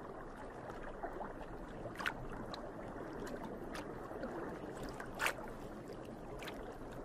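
Soft, steady underwater water ambience with a few sharp clicks, the loudest about two seconds and about five seconds in.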